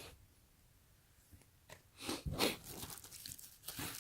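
Plastic packaging crinkling and crackling as it is handled and opened, starting about halfway through, after a single faint click.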